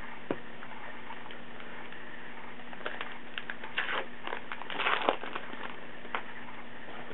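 Rustling and light clicks of baseball trading cards and packs being handled, busiest from about three to five seconds in, over a steady low hum.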